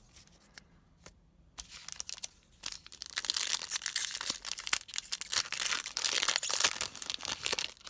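Foil wrapper of a trading card pack being crinkled and torn open, starting sparse and becoming a dense crackling rip about three seconds in that lasts until just before the end.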